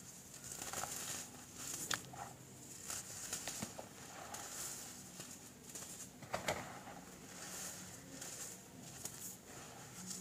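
Hands squeezing and crumbling clumps of dyed baking soda powder: soft, repeated powdery crunching and rustling, with sharper crunches about two seconds and six and a half seconds in.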